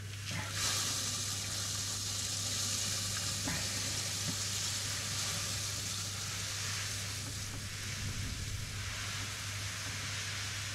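Crushed malt grain poured steadily into hot mash water, a continuous hiss that starts about half a second in and eases off near the end, over a steady low hum.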